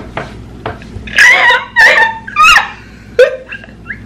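A woman's high-pitched, shrieking laughter in several loud bursts from about a second in, then one short burst near the end.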